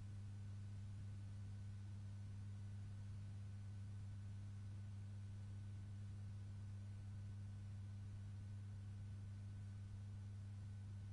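Faint, steady low hum over an even hiss: the background noise of an old film soundtrack, with no music or narration.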